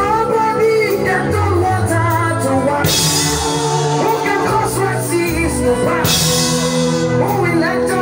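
Live band music with singing over a drum kit. A loud cymbal wash comes in about three seconds in and lasts about three seconds.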